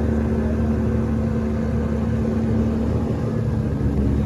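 A small boat's outboard motor running at a steady cruising speed, with a steady even hum.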